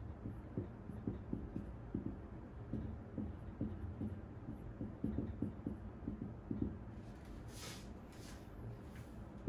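Whiteboard marker writing on a whiteboard: a run of quick, soft taps and strokes as figures are written, with a brief hissing sound about three-quarters of the way through.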